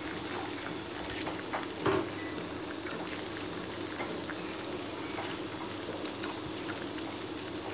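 Chicken pieces deep-frying in hot oil in a stainless steel pan: a steady sizzle with small crackles, and a short knock about two seconds in.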